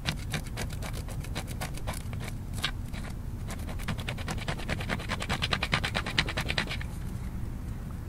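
A sharp stone flake sawing at a twisted fibre cord in rapid back-and-forth scraping strokes. The strokes come faster and loudest in the second half and stop about seven seconds in.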